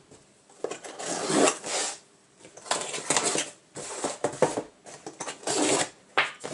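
Cardboard mailer box being cut open with a box cutter and handled: several short scratchy scraping and tearing strokes, with a sharp tap near the end.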